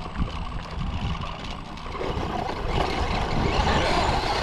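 Radio-controlled car driving over dirt, its motor and tyres running, getting louder about halfway through.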